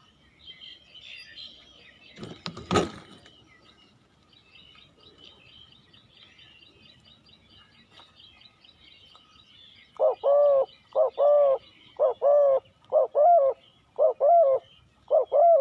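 Faint chirping of small birds, a sharp thump about two and a half seconds in, then from about ten seconds a spotted dove cooing loudly in a run of short arched notes, roughly one every two-thirds of a second.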